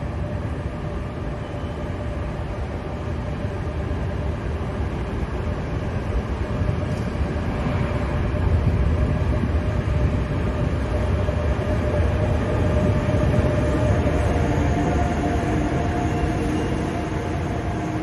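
NS intercity electric train running past the platform: a steady rail rumble with a thin hum over it, growing louder to a peak about halfway through, then easing off as the train clears the station.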